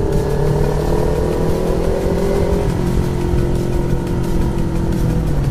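Motorcycle engine running while under way, its note easing down slowly, over a steady rush of wind noise.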